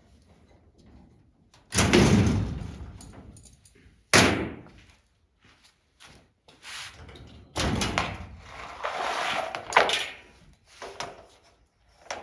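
A series of loud bangs and thuds in a workshop: the first and loudest rings out for about a second, three more come a few seconds apart, and smaller knocks and clatter fall between them.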